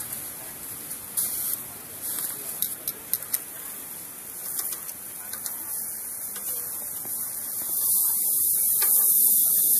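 Chicken breast and pineapple pieces sizzling on a gas grill, a steady high hiss that grows louder near the end, with sharp clicks of metal tongs on the grill grates in the first few seconds.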